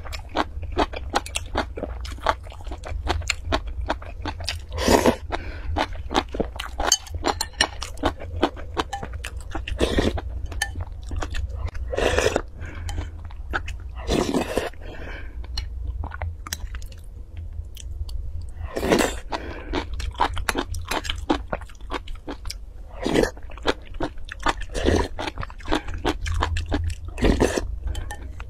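Close-miked mouth sounds of a person eating: crunchy chewing and biting in quick, wet clicks, with a few longer slurps from a spoon. A steady low hum sits underneath.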